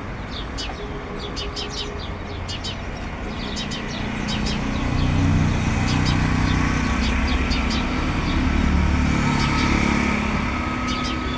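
Small birds chirping in quick short notes throughout. Under them a motor vehicle's low rumble swells about four seconds in and eases off near the end, as it passes.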